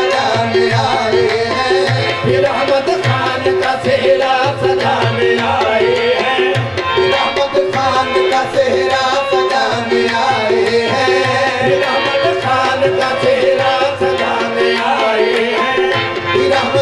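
Qawwali music without words: tabla playing a steady, continuous rhythm under a sustained harmonium melody.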